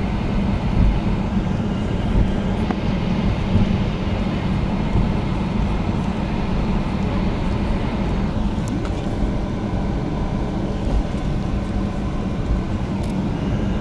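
Cabin noise of a Boeing 737-800 taxiing: its CFM56 turbofans at low taxi thrust give a steady low rumble with a faint steady whine above it.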